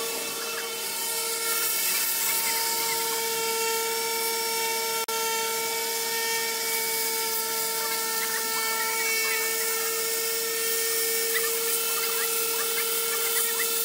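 Handheld power disc sander running steadily with a high, even whine as it grinds old paint and filler off a yacht's hull.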